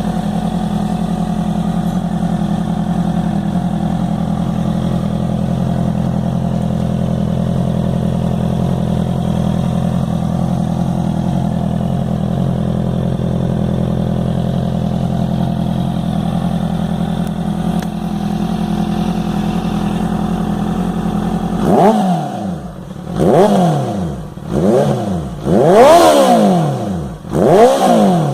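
Honda CB 650F inline-four running at a steady idle through an aftermarket sport exhaust, loud. About three-quarters of the way through it is revved in a quick series of throttle blips, each rising and falling in pitch.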